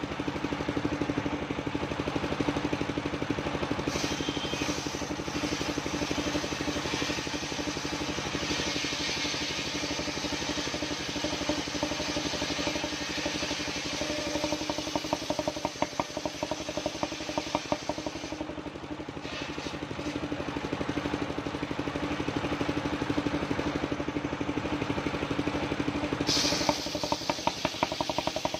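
Engine of a mobile circular sawmill running steadily. A harsher hiss swells over it several times, strongest near the end.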